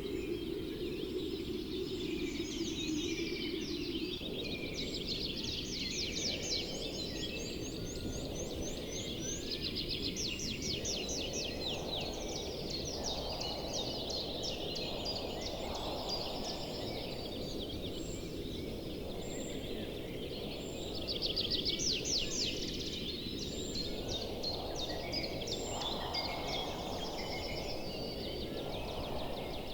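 Many birds chirping and trilling in quick, high repeated notes, over a steady low rushing background that swells and fades every few seconds.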